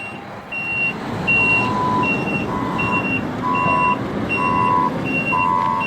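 Reversing alarms on heavy equipment beeping, with engine noise underneath. A high-pitched beep repeats throughout, and a lower-pitched beep at a slightly slower rate joins in about a second and a half in.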